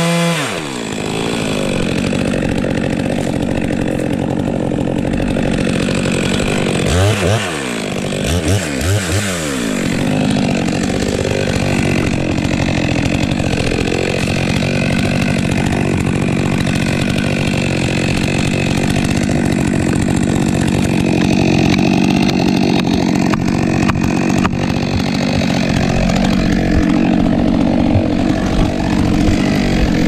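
Stihl MS 462 C two-stroke chainsaw dropping from full revs to idle just at the start, then running at a steady idle, with a few quick blips of the throttle about seven to ten seconds in.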